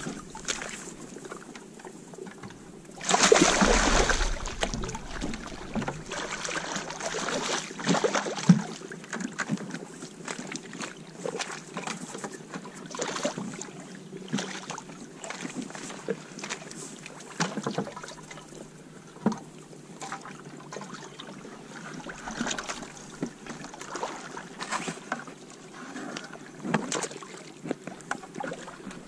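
Small knocks and clicks of gear handled aboard a fishing kayak. About three seconds in, a loud rush of wind hits the microphone.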